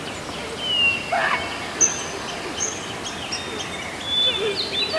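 Small songbirds chirping and calling in short, high notes over a steady outdoor hiss, with a brief lower voice-like sound near the end.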